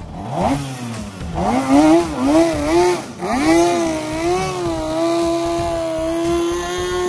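Racing hydroplane's two-stroke outboard engine revving in quick blips while held in the shallows, dropping out briefly about three seconds in, then revving up and holding a steady high pitch as the boat planes away.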